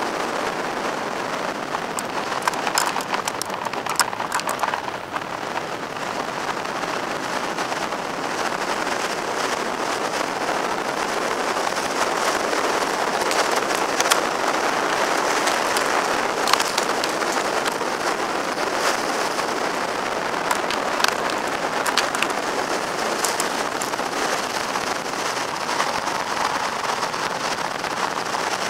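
Steady rush of wind and road noise at a roof-mounted camera on a car driving fast, with scattered sharp ticks.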